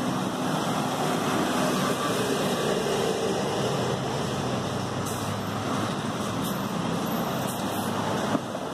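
Diesel city buses and road traffic: a Mercedes-Benz OF-1721 front-engined bus approaches and runs past close by near the end, over a steady traffic hum.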